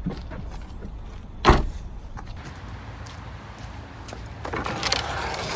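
A car door shuts with one sharp thud about a second and a half in, over the low steady rumble of a car; a rushing noise builds toward the end.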